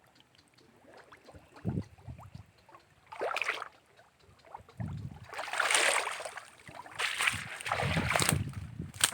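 Water sloshing and splashing in several separate bursts, the loudest a little past the middle, with a few low thumps in between.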